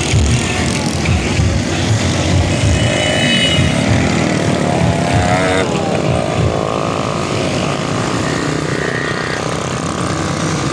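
Many small motorcycles riding together in a procession, their engines running in a steady combined drone, with wind buffeting the microphone.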